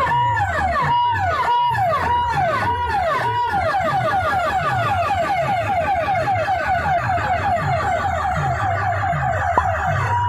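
Siren-effect track played loud through a stack of horn loudspeakers over a pulsing bass beat. It sweeps up and down about twice a second, switches a few seconds in to a fast yelp, and goes back to the slower sweep near the end.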